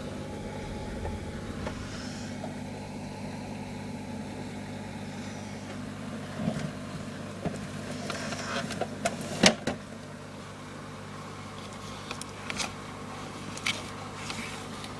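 A steady low mechanical hum, with a scatter of sharp clicks and knocks from handling near the plastic tubs, clustered in the middle and loudest about nine and a half seconds in.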